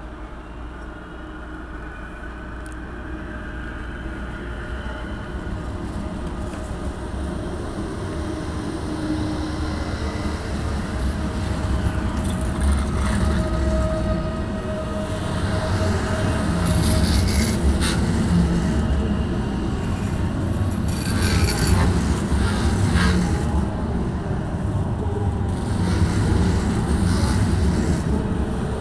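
Deutsche Bahn ICE high-speed train pulling out of a station and picking up speed, its cars rolling past close by with a low rumble that grows steadily louder. A few brief clicks and a short faint whine come and go midway.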